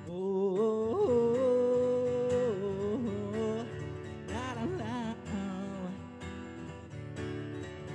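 Acoustic guitar played under wordless singing: a long held note early on, then shorter rising and falling vocal phrases.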